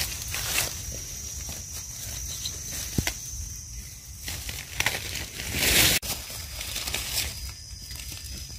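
Dry grass and leaf litter rustling and crackling as hands part the grass and a small knife cuts a bolete mushroom from the ground. There is a sharp click about three seconds in, a louder rustle near six seconds, and a thin steady high whine behind it all.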